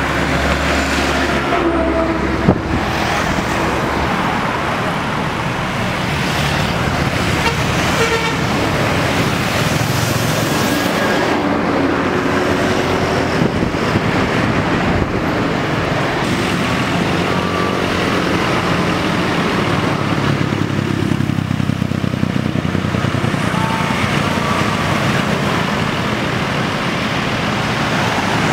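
Street traffic with a Scania K410iB coach's engine running as it pulls in among passing motorcycles, and several short vehicle-horn toots.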